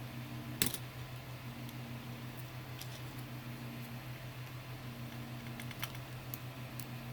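A few light clicks and taps from small plastic Joy-Con parts being handled during reassembly, the sharpest about half a second in. Under them a steady low hum, with a second hum tone coming and going every second or two.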